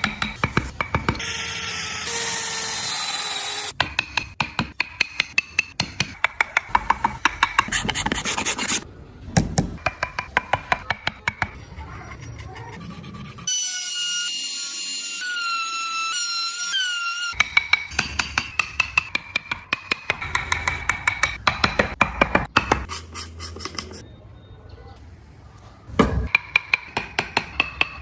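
Wood being worked with a hand tool: rapid, even scraping or rasping strokes, about four a second. They are broken twice by a stretch of steady, high-pitched whine.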